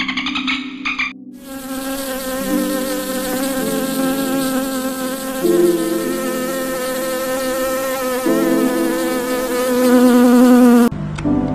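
Paper wasps buzzing: a steady droning hum with a slightly wavering pitch and several overlapping tones that shift every second or two, starting about a second in.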